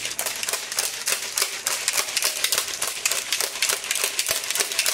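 A protein shaker cup full of liquid shake being shaken hard by hand, the contents knocking back and forth inside in a loud, fast, even rattle of sharp knocks.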